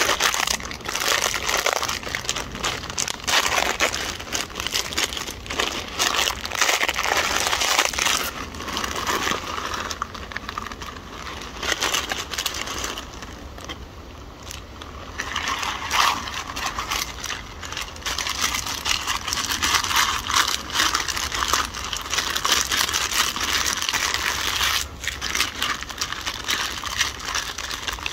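Stainless-steel Opinel knife slicing spring onion and fresh chilli on a small wooden chopping board: a dense, irregular run of crisp cuts and taps against the board.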